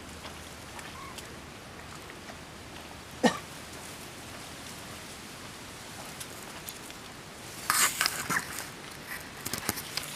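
Tall dry reeds and grass rustling and crackling in a few short bursts near the end as a person pushes and works among the stems, over a faint steady hiss. One brief sharp sound stands out about three seconds in.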